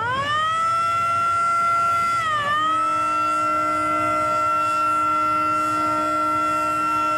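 Boat horns sounding long held blasts: a higher horn rises quickly into a steady note, dips briefly about two and a half seconds in, and a second, deeper horn joins it.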